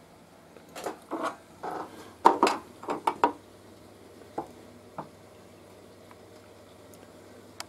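An engineer's square and the rip fence being handled on a table saw's table: a quick run of knocks and scrapes, then two light taps a little later.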